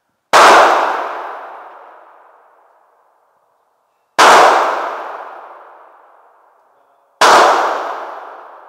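Three shots from a big-bore .500 revolver with an unported short barrel, about four and then three seconds apart. Each is a sharp crack followed by a long echo in the indoor range that dies away over about two seconds.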